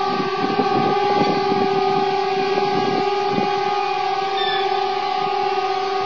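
Mock emergency-alert attention tone: a steady chord of several held pitches that does not rise or fall. Crackling noise runs over it through roughly the first three and a half seconds.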